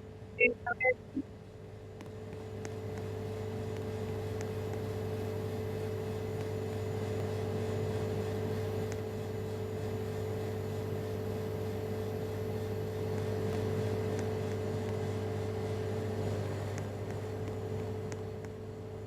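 A steady mechanical hum with two constant tones under a rushing noise that swells about two seconds in and fades near the end. A few short beeping tones sound about half a second in.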